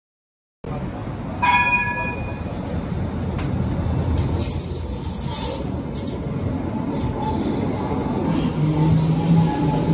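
Electric tram running past close by, its steel wheels rumbling on the rails with a high-pitched squeal that comes and goes from about four seconds in. The sound cuts in suddenly just after the start, with a brief ringing tone about a second later.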